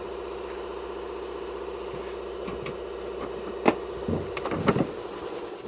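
Workshop air compressor running with a steady hum that dies away near the end. A few sharp knocks and clinks come from hammers being put back into a steel toolbox drawer.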